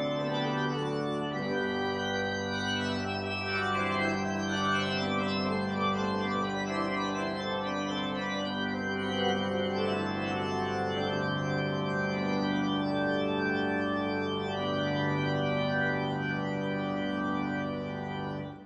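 Church organ playing a postlude in slow, sustained chords; the music cuts off abruptly near the end.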